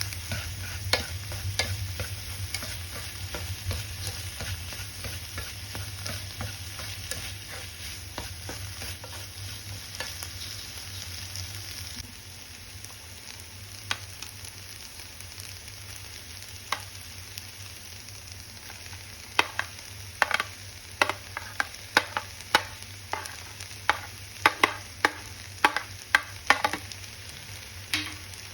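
Egg fried rice frying in a pan: a steady sizzle with a utensil stirring and scraping through it. About twelve seconds in the sizzle drops away, and later comes a quick run of sharp knocks of the utensil against the pan.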